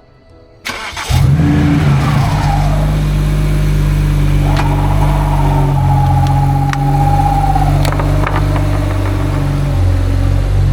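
BMW 335i's N54 twin-turbo inline-six starting after a fresh oil fill: it catches about a second in with a rev flare that falls away, then idles steadily.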